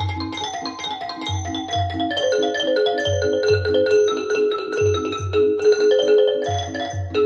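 Recorded music played back through Wilson Audio WATT/Puppy 7 loudspeakers: a melody of struck, ringing mallet-percussion notes that steps downward in the first couple of seconds, over low bass notes that come in pairs about every second and a half.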